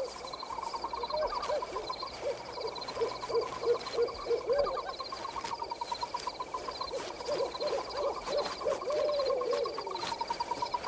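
Night forest sound effects: a run of short, low animal calls, several a second, over a steady high chirring.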